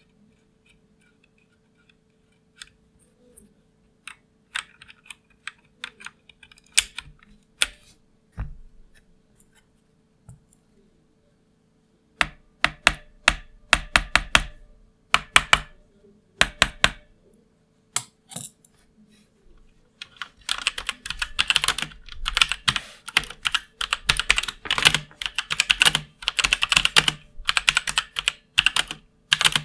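Typing on a mechanical keyboard with Outemu red linear switches: scattered keystrokes at first, a quick flurry about twelve seconds in, then fast continuous typing over the last third.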